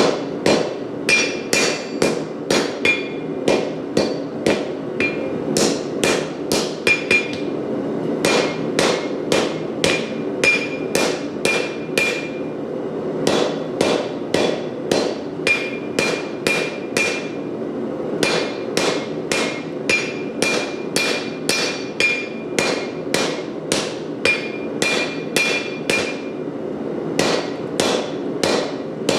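Hand hammer striking hot Damascus steel on an anvil, about two to three blows a second in runs with short pauses, each blow ringing, as a knife point is forged. A propane forge burner runs steadily underneath.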